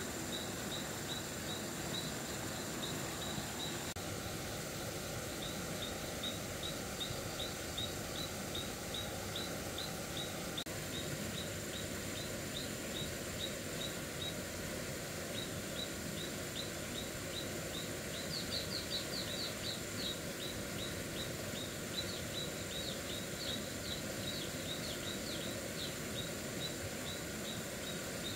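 Rural outdoor ambience: a high chirp repeated about three times a second, louder for a spell about two-thirds of the way in, over a steady hiss and a thin, steady high whine.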